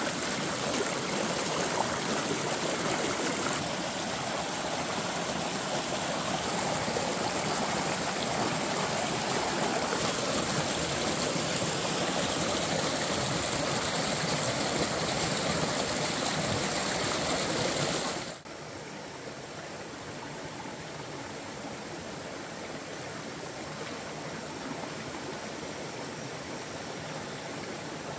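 Small rocky stream rushing over stones, with water splashing over hands and oyster shells as they are rinsed in the flow. About 18 seconds in, the water noise drops suddenly to a quieter, steadier stream.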